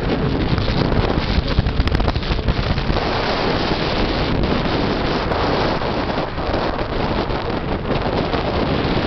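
Wind rushing over the microphone aboard a moving motorboat, with the boat's engine and water noise under it, as a loud, steady rush of noise.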